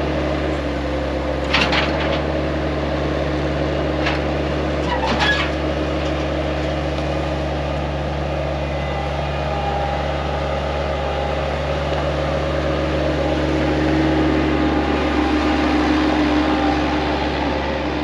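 An engine running steadily at a constant speed, with short clattering knocks about a second and a half in and again about five seconds in.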